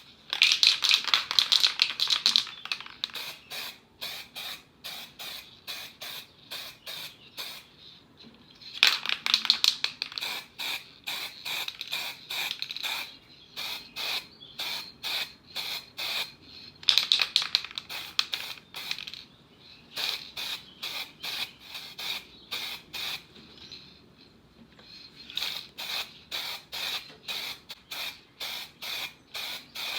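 Quick, rhythmic back-and-forth scraping strokes of a hand tool rubbing on a small part, about two to three strokes a second. It comes in spells that are louder about a second in, around nine seconds and around seventeen seconds.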